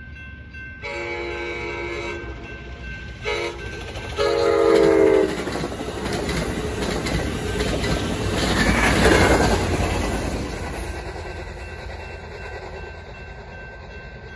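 Amtrak San Joaquins passenger train, cab car leading, sounds its horn for the crossing: a long blast, a short one, then a louder long one. It then rumbles past with wheel clatter, loudest about nine seconds in before fading. A railroad crossing bell rings steadily underneath.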